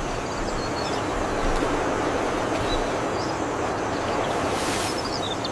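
Steady rushing ambient noise at an even level, with a few faint, short, high chirps.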